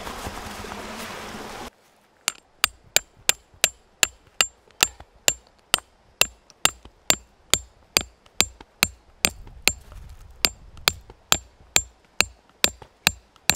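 A hooked metal tent stake being hammered into stony ground: a steady run of about thirty sharp strikes, two to three a second, each with a short metallic ring. Before the strikes start, a steady outdoor hiss cuts off suddenly.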